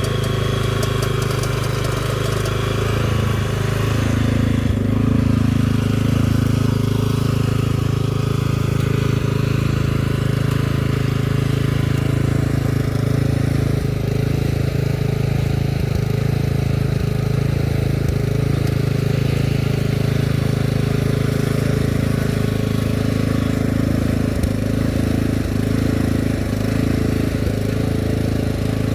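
Walk-behind cultivator's engine running steadily under load as it works the soil, its note shifting slightly about four seconds in.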